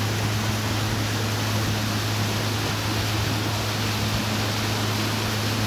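Boat motor running steadily underway, a constant low hum under an even rush of water and wind noise.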